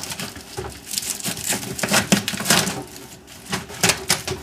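Dryer vent hose being worked and slid off a PVC pipe after its hose clamp is loosened: a run of crinkling rustles and light clicks and scrapes, thickest between about one and three seconds in, with a couple more near the end.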